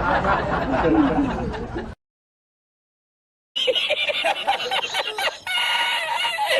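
Two clips from a sound-effect compilation. A dense, noisy clip cuts off about two seconds in, then comes a second and a half of dead silence, then a clip of snickering laughter in short choppy bursts.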